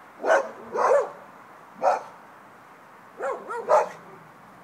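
Wheaten puppy yapping: about six short, high barks, three spaced out over the first two seconds and a quick run of three a little past the middle.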